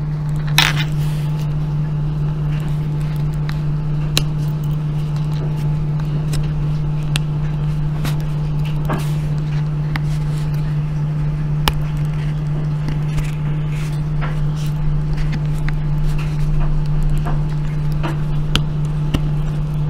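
A steady low hum throughout, with scattered small clicks and scrapes as a small flathead screwdriver pries and picks at the plastic foot recesses of a laptop's bottom cover.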